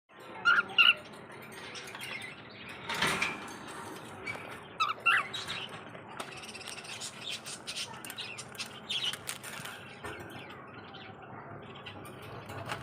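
Small pet parrots chirping in short, sharp calls, the loudest near the start and about five seconds in, with a brief rustle about three seconds in.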